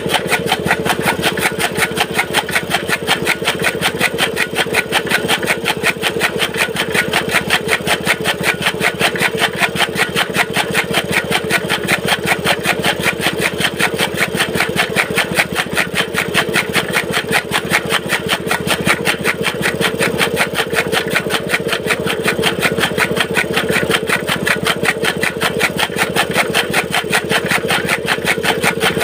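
Small petrol engine running steadily, belt-driving a flywheel chaff cutter (toka) as green fodder is fed in and chopped. The sound is an even, fast pulse that does not let up.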